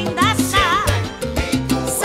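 Cuban salsa band playing live, with keyboards, a steady bass line, percussion hits and a singer's voice wavering above.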